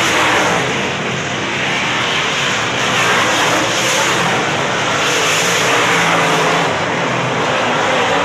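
UMP dirt modified race cars' V8 engines running at racing speed around a dirt oval. The engine noise is loud and continuous, swelling and easing a little as cars go by.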